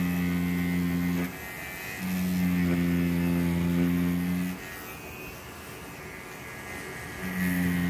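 Pen-style rotary tattoo machine running with a steady electric hum as it lines a design on practice skin. It stops just over a second in, runs again from about two seconds until past the middle, falls silent for nearly three seconds and starts up again near the end.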